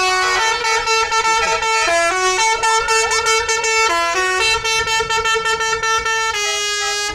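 Musical horn on a parade van playing a tune: loud held notes of varying length that step up and down in pitch.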